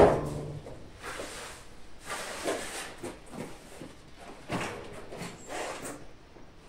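A .300 Savage Mauser rifle shot, its echo under the range roof dying away within about half a second, followed by a few quieter scattered knocks and rustles.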